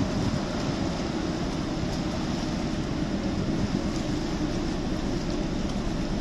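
Steady low rumble of the ferry Abel Matutes under way, with a constant rush of wind on the microphone over it.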